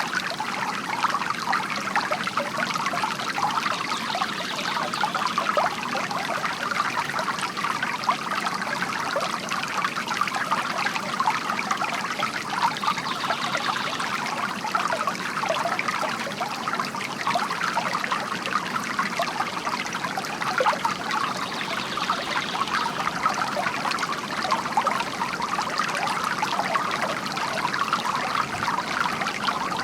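Bamboo water fountain: water trickling and pouring steadily from the bamboo spout, with a continuous patter of small splashes.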